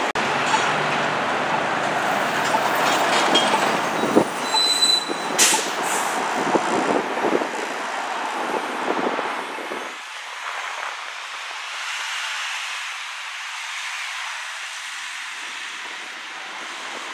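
City street traffic with New York City transit buses and cars passing: loud, dense vehicle noise with scattered knocks and a brief high squeal about four seconds in, then thinner, quieter passing-car noise from about ten seconds on.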